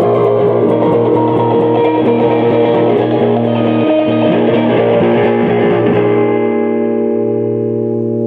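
Music: electric guitar strumming a chord over a sustained drone, with rapid strokes until about six seconds in, when the strumming stops and the chord is left ringing and fading at the top.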